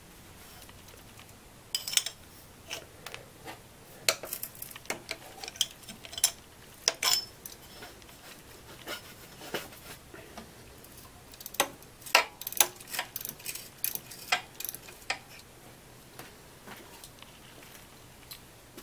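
Irregular metallic clicks and clinks of a wrench and socket on the 14 mm alternator pivot bolt as it is loosened to slacken the serpentine belt. The clicks come in scattered clusters and stop a few seconds before the end.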